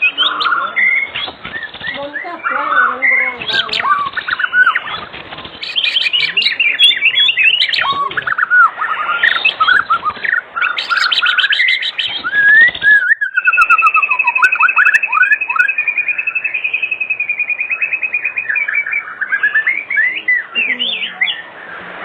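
White-rumped shama (murai batu) singing a loud, varied song of quick whistled phrases and rapid trills. A little past halfway it breaks briefly, then holds a long fast trill on one pitch for several seconds before returning to varied phrases.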